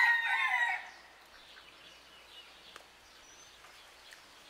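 The end of a rooster's crow, which stops about a second in, followed by quiet outdoor background with a faint click near the middle.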